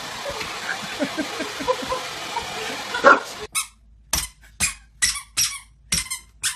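Hair dryer blowing steadily while a bulldog lets out short squeaky grunts and yelps, snapping at the air stream. After about three seconds the sound cuts to a run of sharp, evenly spaced knocks, about two a second.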